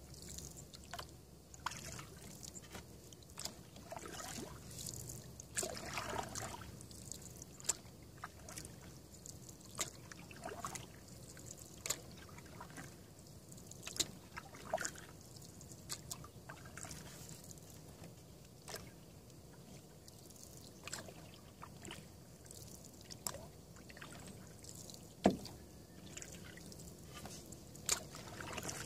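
Canoe being paddled on calm water: quiet paddle strokes with water trickling and dripping off the blade, and scattered light clicks and knocks, one sharper knock a few seconds before the end.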